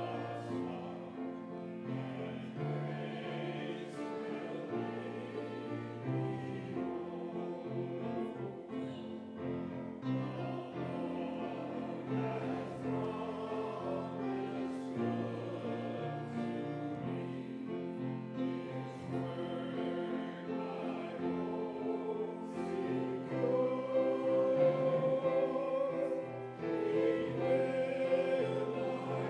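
A congregation singing a slow hymn together, with piano accompaniment and long held notes.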